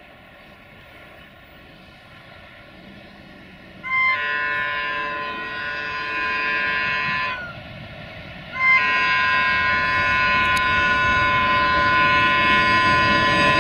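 Locomotive air horn on an LDE2100 diesel-electric locomotive, sounding two long blasts of several tones at once. The first starts about four seconds in and lasts about three seconds; the second starts near nine seconds in and is still sounding at the end. Under the second blast the locomotive's running rumble grows louder as it approaches.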